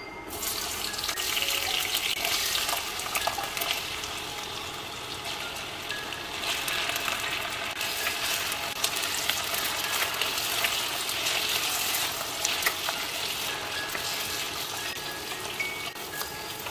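Diced raw potatoes sizzling in hot oil in a pan, starting sharply as they go in about half a second in and then frying steadily with small crackles. Near the end a spatula stirs them through the oil.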